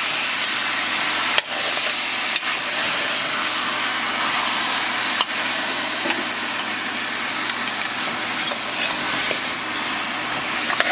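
Oxtail pieces sizzling steadily as they brown in caramelized sugar in a metal pot, with a spoon stirring them and a few sharp knocks of the spoon against the pot.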